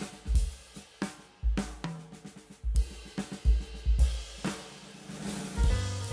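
Background music: a drum-kit beat with bass drum thumps, snare and cymbal hits.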